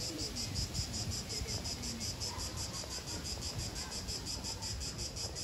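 A chorus of insects, crickets or cicadas, chirping in a steady high, fast, evenly pulsing trill, with a low rumble underneath.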